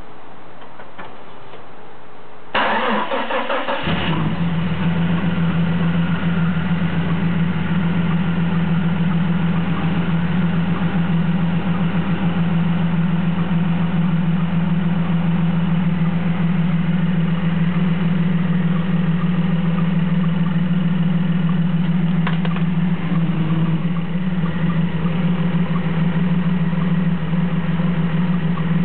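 1993 Jeep Cherokee engine cranking briefly and catching about two and a half seconds in, then idling steadily. The idle carries the misfire the owner is showing.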